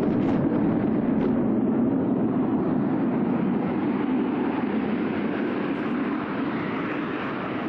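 Panavia Tornado's twin RB199 turbofans on a takeoff, a steady deep rush of jet noise that slowly grows quieter as the aircraft moves away.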